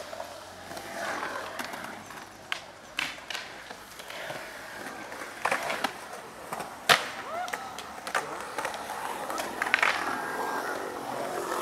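Skateboard urethane wheels rolling on concrete, broken by several sharp clacks of the board. The loudest crack comes a little before 7 s, as the board lands an ollie over a shopping cart.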